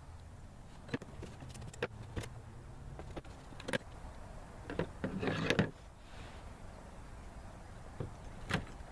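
Scattered sharp metallic clicks and knocks, with a short clatter about five seconds in: the Honda F22B1 cylinder head and its loose valve parts being handled and shifted on a table while the valves are pushed out.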